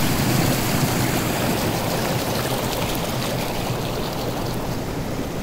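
A small mountain stream running through grassland, a steady rush of water over stones that eases slightly toward the end.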